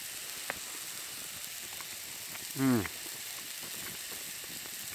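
Hot cast-iron skillet sizzling steadily with steak on it. About two and a half seconds in comes a brief low hum of a man's voice, falling in pitch, and there is a small click near the start.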